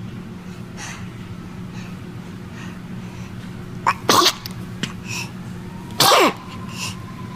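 Baby sneezing twice, about two seconds apart, each a short, sharp burst that falls in pitch, over a steady low hum.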